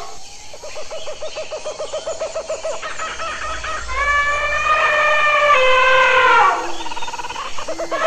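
African elephants calling: a pulsing, rattling call for the first three seconds, then long trumpet calls from about four seconds in, overlapping and falling in pitch at their ends.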